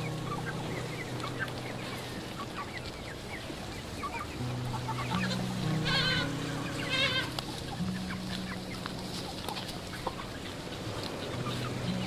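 A flock of young chickens clucking and peeping, with many short calls scattered throughout and two louder warbling calls about six and seven seconds in.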